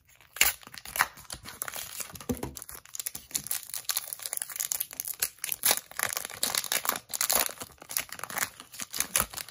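Foil wrapper of a Pokémon trading card booster pack crinkling and tearing as it is pulled from its cardboard backing and torn open by hand, in dense irregular crackles.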